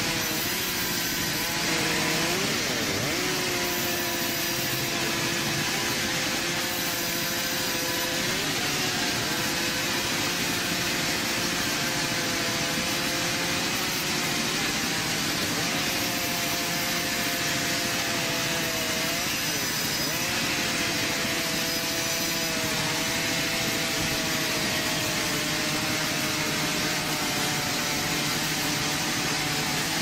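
Industrial vertical band saw resawing timber planks: a steady machine hum and rasp of the blade through wood, its pitch sagging briefly and recovering several times as boards are pushed into the cut.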